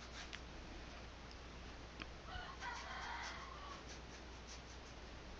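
Quiet brush strokes on canvas with a few light taps. About two seconds in, a faint drawn-out call sounds in the background for about a second and a half.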